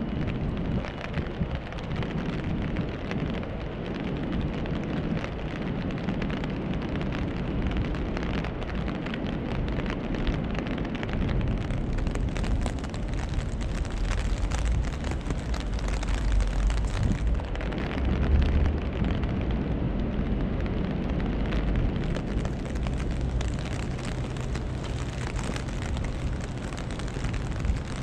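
Steady rain falling, with many small drops ticking close by, over a low, constant rumble of city traffic that swells for a few seconds past the middle.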